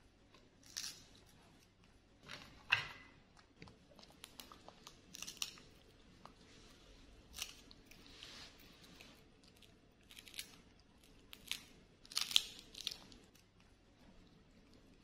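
Pet macaques eating small snack cakes by hand: quiet, scattered crisp crunching and chewing noises, one every second or two, with a louder cluster about 12 seconds in.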